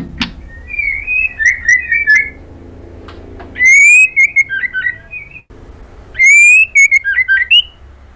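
White-rumped shama singing: short whistled notes, then two loud, clear rising whistles about three and a half and six seconds in, each followed by a quick jumble of clipped notes.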